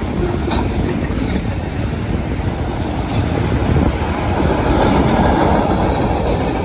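Freight train cars rolling past close by, a loud steady rumble of steel wheels on the rails with a few clicks, swelling louder about halfway through.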